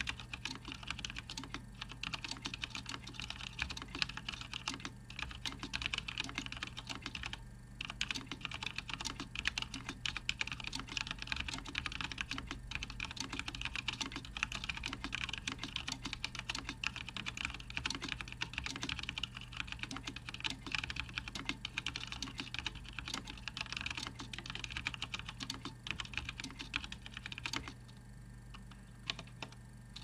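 Fast touch typing on a Cooler Master Storm QuickFire Rapid mechanical keyboard with linear Cherry MX Black switches and Vortex PBT doubleshot keycaps, its case cover removed. There is a dense, rapid patter of keystrokes with a brief pause, which thins to a few scattered keystrokes near the end.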